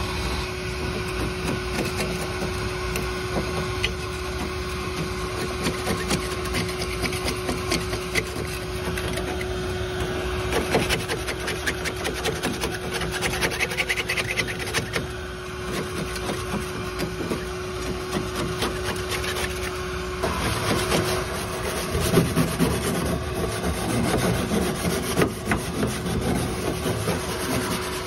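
Hand scraping of a rusted, pitted steel condensate drain pan in a rooftop HVAC unit: a putty knife rasps loose rust and scale off the corroded metal in repeated strokes, getting louder and busier after about 20 seconds. A steady hum runs underneath.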